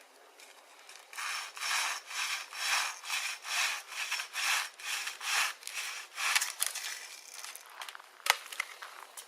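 Regular rasping strokes, about two a second, for some six seconds, then a single sharp snap near the end.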